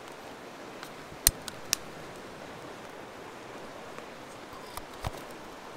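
Jetboil MiniMo camp stove being lit with its push-button igniter: a few sharp clicks about a second in, and a low knock near the end as the cooking cup goes onto the burner, over a steady hiss of flowing river water.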